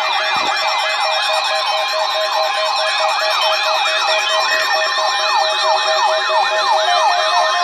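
Several electronic sirens sounding at once: overlapping fast rising-and-falling yelp tones over steady and evenly pulsing tones, loud and unbroken.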